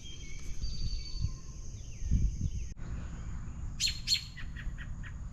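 Adult American robin giving a quick series of short, sharp alarm calls about four seconds in, a nervous parent disturbed near its nest.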